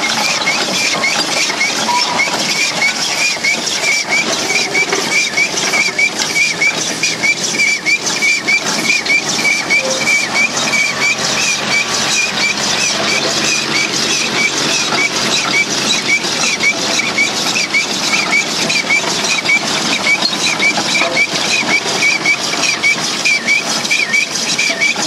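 Steam roller running along under its own steam, with a thin high squeak repeating evenly about twice a second over a steady hiss and clatter.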